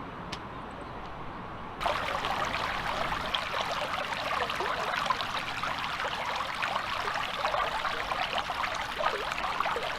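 Running water babbling steadily, as of a small stream, cutting in suddenly about two seconds in over a quieter outdoor background.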